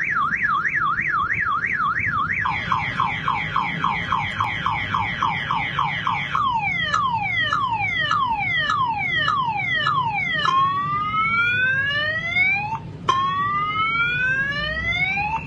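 Electronic alarm siren cycling through its tone patterns. It starts with a fast up-and-down warble about three times a second, then quick falling sweeps about five a second. Slower falling sweeps follow, then two long rising sweeps with a brief break between them.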